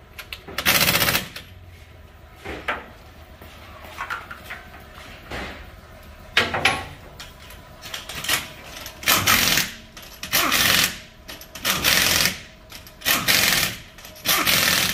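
Impact wrench rattling in short bursts as it runs the lug nuts of a truck's aluminium wheel tight: one longer burst under a second in, a few scattered ones, then a steady run of bursts a little over a second apart through the second half.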